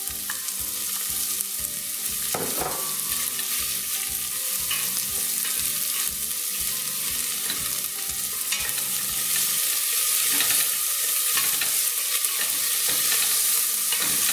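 Chopped onions sizzling steadily in olive oil in a stainless steel pan, with a wooden spoon scraping and knocking against the pan now and then as they are stirred.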